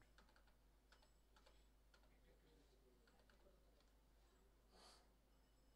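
Faint computer keyboard keystrokes, scattered clicks at an uneven pace, with a short hiss about five seconds in.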